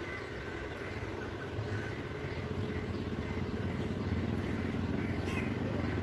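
Low rumble of road traffic, growing louder toward the end.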